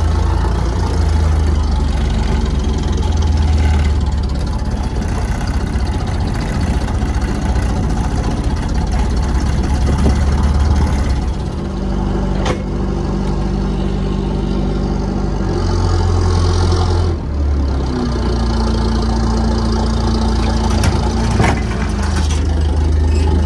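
A fishing trawler's diesel engine running steadily with a deep drone, the boat towing its bottom trawl net. The engine note shifts a couple of times, with a few sharp knocks.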